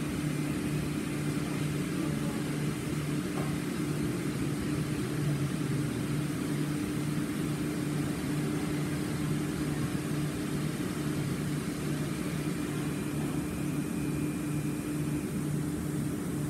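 Large industrial vacuum-forming machine (thermoformer) running: a steady mechanical hum with a strong low tone and a lower note that pulses at a regular rate.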